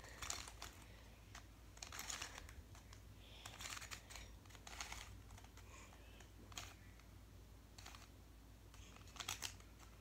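Faint, scattered plastic clicks and scrapes of a stickerless barrel cube's layers being twisted by hand, a handful of short turns spaced irregularly. The puzzle is stiff and hard to turn.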